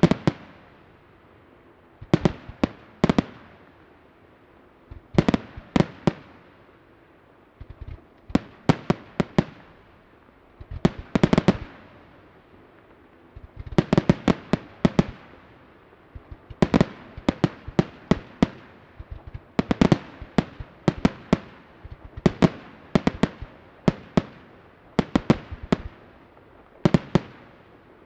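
Aerial firework shells bursting in quick clusters of sharp bangs, each cluster trailing off in an echoing rumble, a new cluster every second or two. The bursts come closer together from about halfway through.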